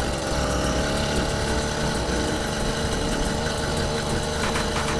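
Motorized bicycle's small engine running steadily under way, heard from the rider's position with its new exhaust silencer fitted.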